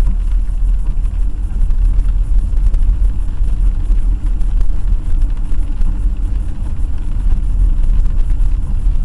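Steady low rumble of a car on the move: engine and road noise, with no impact.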